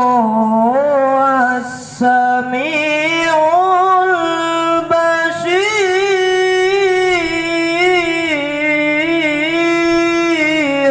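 A boy's solo voice chanting an Arabic recitation through a microphone and loudspeaker, in a melismatic style with long held notes that waver and slide in pitch, and a breath break about two seconds in. A steady low hum runs underneath.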